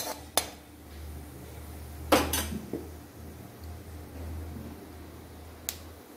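Perforated steel ladle clinking against a kadai: two light knocks at the start, a louder clank about two seconds in, and one faint tick near the end, over a low steady hum.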